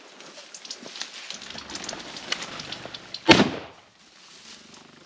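Footsteps crunching through dry grass and brush, then a single shotgun shot a little over three seconds in, the first barrel of a double fired at a flushing covey of valley quail.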